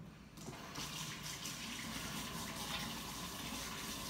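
Kitchen tap turned on about half a second in, water running steadily into the sink while hands are washed.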